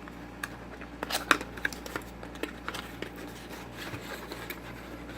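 Light handling noises of soldering station accessories and their packaging being moved about: scattered small clicks and rustles, a few sharper ones about a second in.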